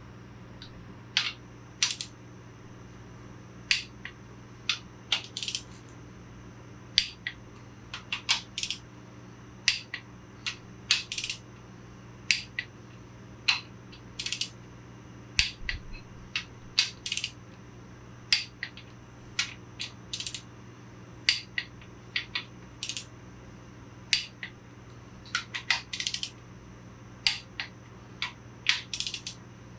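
Ratchet torque wrench clicking in short irregular runs as the Ford 400's main bearing cap bolts are torqued down, over a steady low hum.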